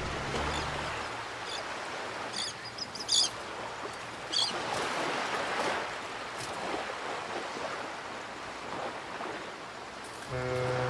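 Outdoor harbour ambience: a steady wash of wind and water noise, with a few short high chirps in the first half. A low engine drone fades out about a second in, and background music starts near the end.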